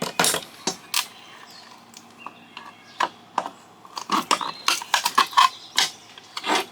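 Irregular knocks and metallic clinks of hand tools on an LNBF's aluminum housing as it is worked apart, with a quick run of ringing clinks about four to five and a half seconds in.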